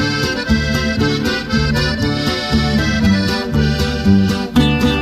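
Accordion playing an instrumental interlude in a Mexican corrido, over a rhythmic bass and guitar accompaniment.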